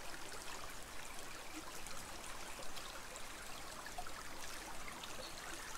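A small creek babbling and trickling softly and steadily.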